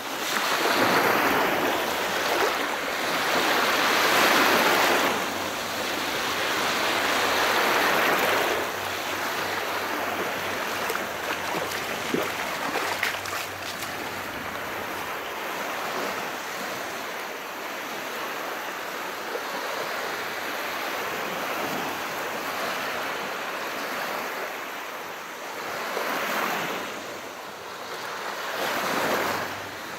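Sea waves washing on a shore: a steady hiss of surf that swells with each wave, three in quick succession at the start and two more near the end, with a quieter wash between.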